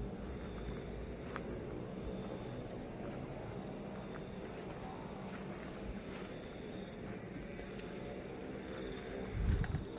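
Night insects chirring steadily: a fast pulsing high trill with a second, higher steady tone above it. A low bump sounds near the end.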